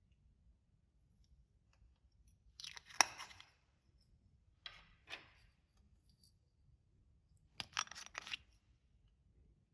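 Clear slime with glitter mixed in being squished and stretched by hand, giving three short bursts of crackling, popping clicks with quiet between them.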